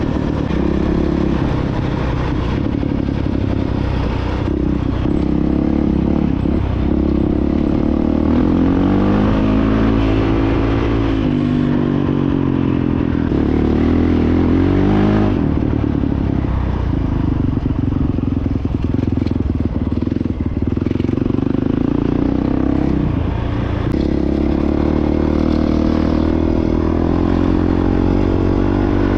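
Honda CRF450X dirt bike's single-cylinder four-stroke engine running on the trail, the revs climbing and dropping several times with throttle and gear changes. There is rattling clatter from the bike over rough ground.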